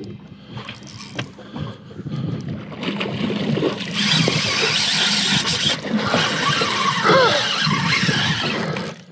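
Shimano Stradic 2500 spinning reel's drag paying out line under a big fish's run, a loud, steady high buzz. It starts about three seconds in, breaks off briefly near the middle and stops just before the end.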